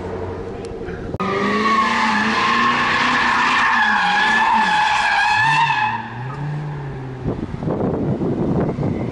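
Chevrolet Corvette drifting: its tyres squeal loudly for about five seconds, starting abruptly a second in, over the V8 engine revving up and down. Near the end the squeal stops, the engine note drops away and wind buffets the microphone.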